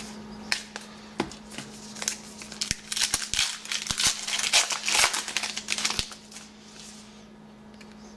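The crimped wrapper of a trading-card pack being torn open and crinkled by hand. A dense run of crackling and clicks lasts for a few seconds, then the sound dies down near the end.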